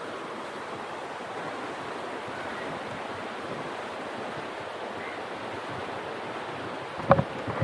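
Steady rush of flowing water, with one sharp knock about seven seconds in.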